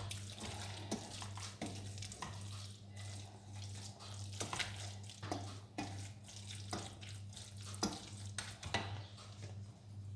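Wooden spoon stirring a thick shredded-chicken filling in a stainless steel saucepan, with irregular scrapes and light knocks of the spoon against the pot. A steady low hum runs underneath.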